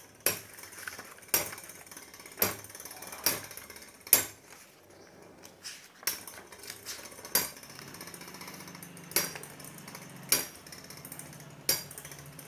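Two Metal Fight Beyblade spinning tops, Burn Phoenix and Phantom Orion, spinning against each other in a plastic stadium and clashing with sharp metallic clinks about once a second, around ten hits in all, over a faint steady background.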